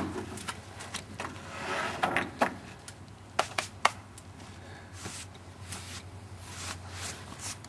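Boards and sawmill parts being handled: a string of scattered knocks and clunks, with a brief scrape about two seconds in, over a low steady hum.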